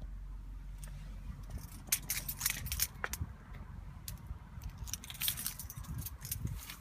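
A run of irregular clicks and rattles starting about two seconds in, over a steady low hum.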